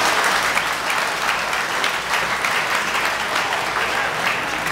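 Crowd applauding in a large hall, the clapping slowly dying down.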